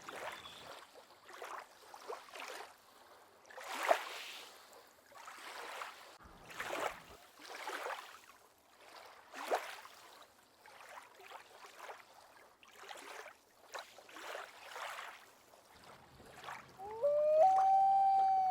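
Water splashing and lapping in irregular small swells. Near the end comes one long pitched call that rises and then holds.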